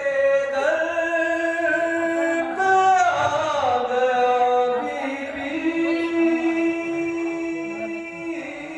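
A man singing a devotional poem alone at a microphone, in long held notes with slides between pitches; the longest note is held for about three seconds in the second half.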